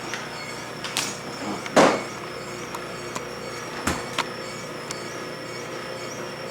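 Greenstar twin-gear juicer running steadily with a faint hum and a wavering high whine, with a few short knocks about one, two and four seconds in, the loudest about two seconds in.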